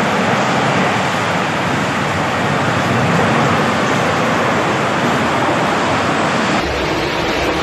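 Tornado winds blowing hard: a loud, steady rushing noise of wind and rain. It changes abruptly near the end, turning heavier and lower.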